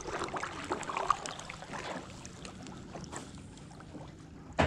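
Canoe being paddled: paddle strokes splashing and dripping in the water, with scattered light clicks and knocks. One sharp knock stands out near the end.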